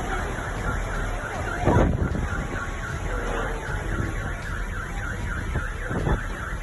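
Car alarm sounding, a fast repeating warble of about three sweeps a second, over a steady low rumble of wind and street noise.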